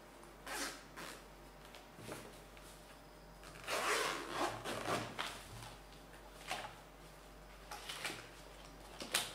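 Zipper on a padded fabric tool case being pulled open: a raspy run of about a second and a half near the middle is the loudest part. Shorter rubbing and handling noises come before and after it.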